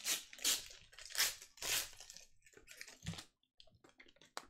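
Crinkling of a plastic trading card pack wrapper being handled and torn open: four loud crinkles in the first two seconds, then fainter rustles and a sharp click near the end.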